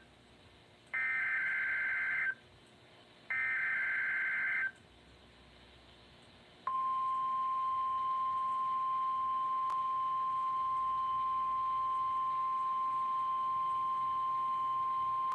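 NOAA Weather Radio weekly test signal. First come two SAME header data bursts, each a harsh warbling screech of about a second and a half, with about a second between them. After about two seconds of quiet comes the 1050 Hz weather alert tone, one steady high tone held for about nine seconds.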